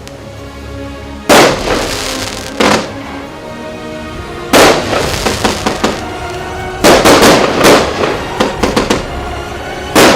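Consumer fireworks cake (multi-shot battery) going off: a series of loud bangs a second or two apart, some in quick clusters, with crackling bursts in between.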